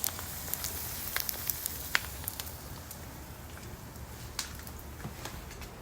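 Egg frying in a pan: a steady sizzle with scattered pops and crackles of spitting fat.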